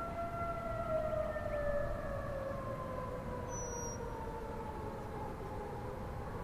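Federal Signal Thunderbolt 1000 outdoor warning siren wailing: one tone with its overtones slides slowly down in pitch and starts climbing again near the end, the rising and falling wail of the attack signal.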